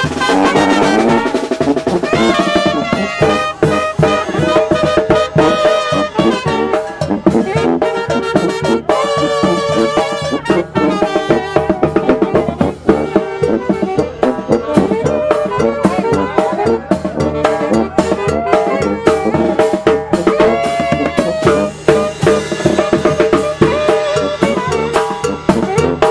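Live tamborazo band playing: sousaphone and alto saxophones with other brass over a steady beat on the tambora bass drum and cymbal.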